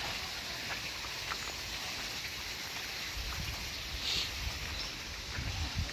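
Outdoor ambience: a steady hiss of background noise, with irregular low rumbling, like wind buffeting the microphone, from about three seconds in, and a short high chirp about four seconds in.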